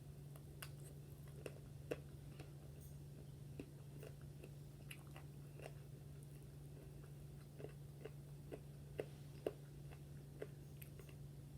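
Close-up mouth sounds of eating fried chicken: irregular small crunches and wet chewing clicks, faint, over a steady low hum.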